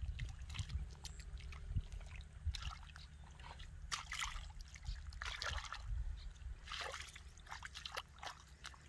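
Bare feet wading and squelching through shallow muddy water, with a hand splashing into it: irregular sloshes, splashes and drips.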